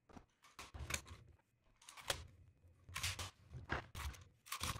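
Irregular sharp clicks and knocks of hand work at a bench: wooden glue-up pieces being set down and a red bar clamp being fitted and tightened over them.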